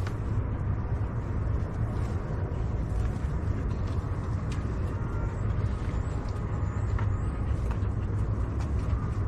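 A steady low rumble, with a few faint clicks as pots are handled.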